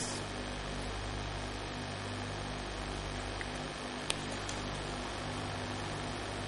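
Steady electrical mains hum and hiss of the recording, with one faint click about four seconds in.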